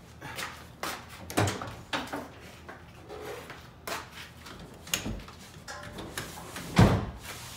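Jeep Wrangler's tailgate latch clicking open, then the rear seat's release latch clacking and the seat back folding down, a string of clicks and knocks ending in one loud thump near the end.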